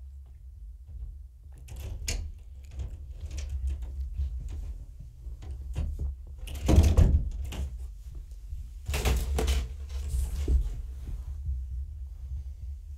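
Scattered knocks, clicks and rustling over a steady low hum, with two louder thuds about seven and nine seconds in.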